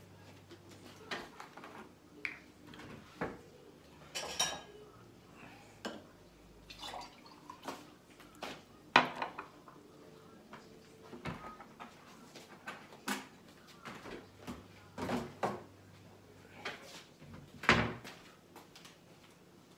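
Kitchen clatter: a string of scattered clinks and knocks from dishes, cutlery and a bottle or glass being handled and set down on the counter, the loudest about nine seconds in and again near the end.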